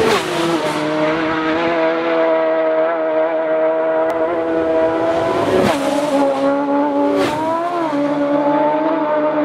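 Racing motorcycle engines running at high revs, a loud, high engine note. The pitch drops sharply just after the start as one bike passes, and it shifts again about five and a half and seven seconds in as bikes come through.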